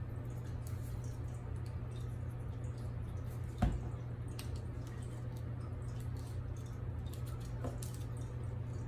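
Small handling sounds of die-cut paper pieces being glued onto cardstock: faint light ticks and rustles over a steady low hum, with a single thump about three and a half seconds in.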